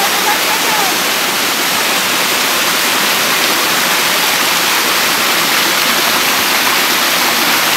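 Waterfall rushing: a loud, steady wash of falling water.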